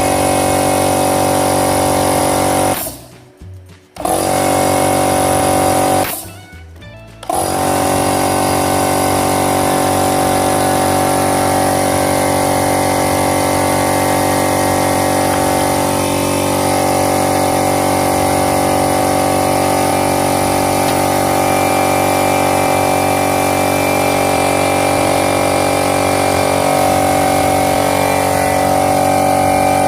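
Oilless electric air compressor motor running with a steady hum, cut off twice briefly near the start and dying away each time before starting up again.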